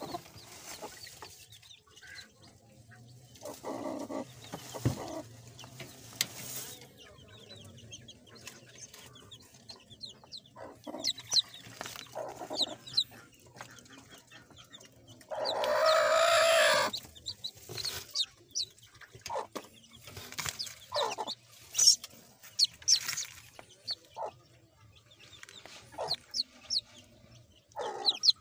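Stressed mother hen clucking, with one loud harsh burst lasting about a second and a half near the middle. Newly hatched chicks cheep in short high peeps in the second half.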